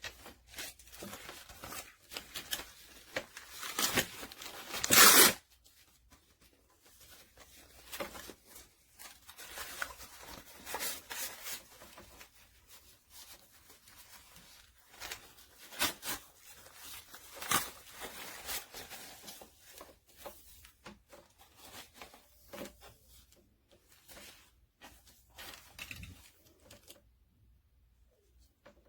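Rustling and clicking of objects being handled at close range, with a loud ripping sound about five seconds in.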